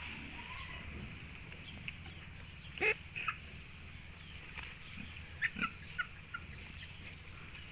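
Short, scattered farm-animal calls over a steady low background noise. The loudest is a brief call about three seconds in that rises sharply in pitch, and a few short calls follow about five and a half seconds in.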